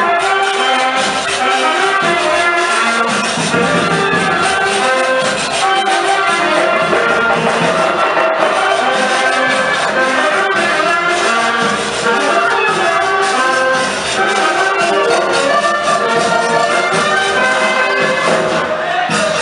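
Loud traditional festival music: wind instruments playing a tune over a steady drum and percussion beat.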